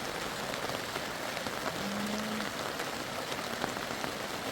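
Steady rain falling, an even hiss flecked with small drop ticks, with a brief low hum about two seconds in.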